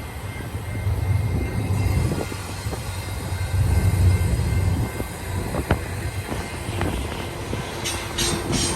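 Freight train rumbling along the track with a low, swelling drone and scattered clanks, then a quick run of rattling strokes near the end.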